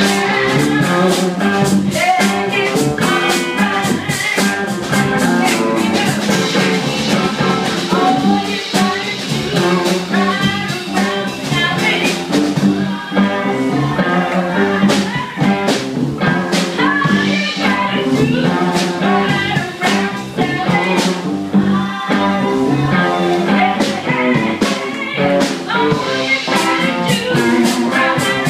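Live blues band playing: electric guitar and drum kit, with a woman singing into a microphone.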